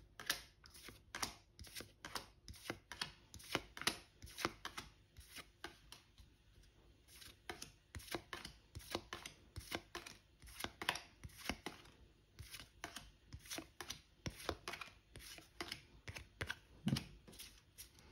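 Yu-Gi-Oh! trading cards being flicked off a hand-held stack one by one and set down on a table: an irregular run of light, sharp clicks, several a second, with a duller knock near the end.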